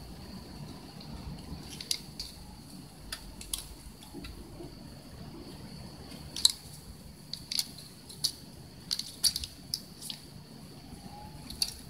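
A cat biting and batting a small plastic cat-teaser toy: irregular sharp clicks and taps, more frequent in the second half.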